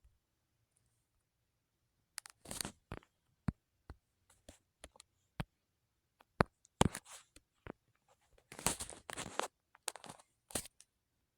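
Irregular sharp clicks mixed with short scraping, rustling sounds of something handled close to the microphone, starting about two seconds in, with a denser cluster of rustling near the end.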